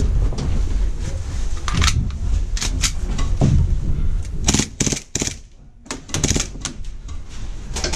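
Airsoft pistol firing a rapid, irregular string of sharp shots, several of them in quick pairs, with a short pause a little past the middle.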